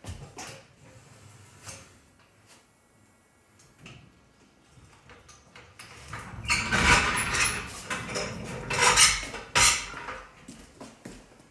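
Metal clinks and clanks from a floor jack and jack stands as the pickup truck is let down onto its wheels, with scattered clicks at first and a louder, busier run of knocks and rattling from about six to ten seconds in.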